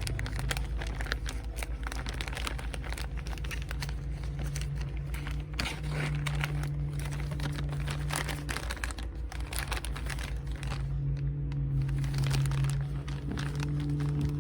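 Packaging crinkling and rustling while a package is handled and opened, a dense run of irregular crackles with some tearing.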